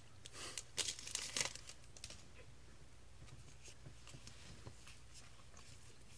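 Foil Yu-Gi-Oh booster pack wrapper crinkling and tearing in a few crackly bursts during the first second and a half, followed by faint soft ticks of cards being handled.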